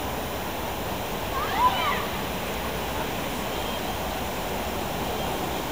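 Steady rushing noise of outdoor city ambience, with a brief high chirp about one and a half seconds in.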